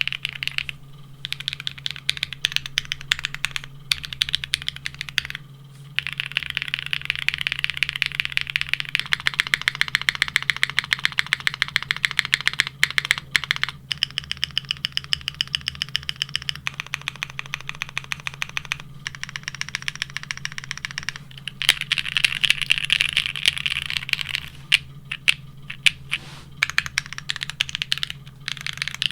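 Fast, continuous typing on a Neo65 mechanical keyboard fitted with ABS keycaps, a dense stream of key clacks broken by a few brief pauses; the KKB keycap set gives way to the GMK set about eight seconds in. A steady low hum runs underneath.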